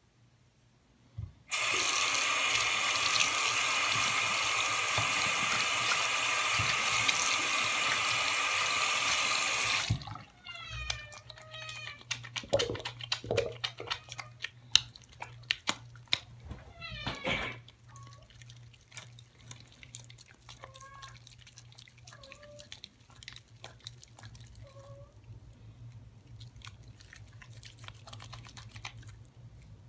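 A bathroom sink tap runs steadily for about eight seconds, then is shut off. Wet hands then rub a bar of soap into a lather, with many small wet squishes and clicks. Several short squeaky calls that bend in pitch come through over the rubbing.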